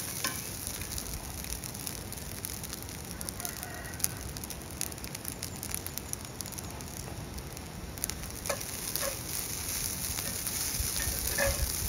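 Steady hiss with many scattered crackles and clicks, and a few faint bird calls in the distance, about four seconds in, near the middle and near the end.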